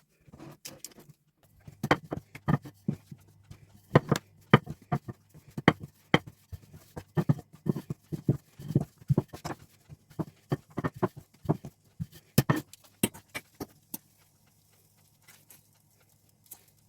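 A run of irregular light taps and knocks, often several a second, over a low steady hum. These are kitchen handling sounds from cooking. The tapping stops about fourteen seconds in.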